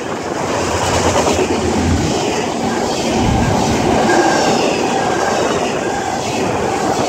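CSX double-stack intermodal freight train's loaded well cars rolling past close by, a steady loud rumble and clatter of steel wheels on the rails.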